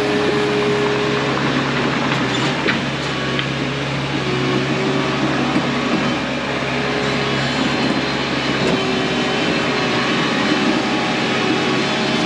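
Bobcat T630 compact track loader running steadily, its diesel engine working under load, with a few light knocks about two to three seconds in.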